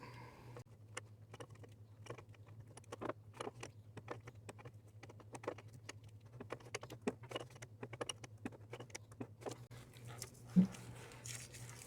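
Faint, irregular light metallic clicks and rattles of a wrench on the canister oil filter housing cap as it is tightened until snug.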